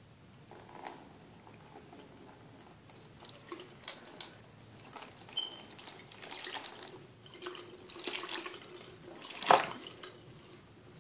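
Hot water splashing and dripping onto a new leather baseball glove in a sink, poured on to soften the stiff leather. The splashes come irregularly, with the loudest one near the end.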